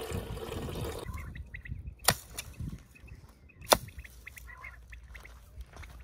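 Liquid pouring into a metal kettle for about the first second. Then short bird calls repeat, broken by two sharp clicks about two and nearly four seconds in.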